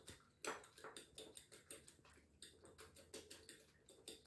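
Faint, quick clicking of cutlery against a ceramic bowl, about four or five light taps a second, as beaten eggs and chopped vegetables are stirred together.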